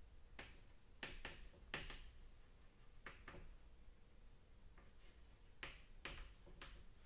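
Chalk on a blackboard while words are written: a dozen or so short, quiet taps and scrapes in irregular groups.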